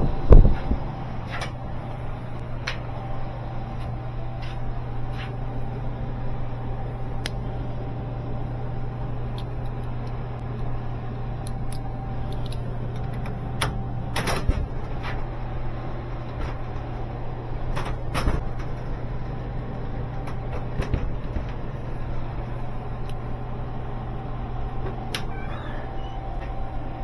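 Steady low machine hum with scattered clanks and knocks of metal work, the loudest about fourteen and eighteen seconds in.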